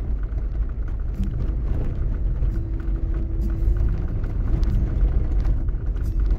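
Steady low rumble of a vehicle driving on a gravel road, heard from inside the cabin, with faint scattered ticks.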